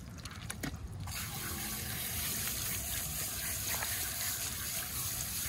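Garden hose spray nozzle spraying water into a soapy dog's wet coat, rinsing out the shampoo. The hiss of the spray sets in about a second in and then runs steadily.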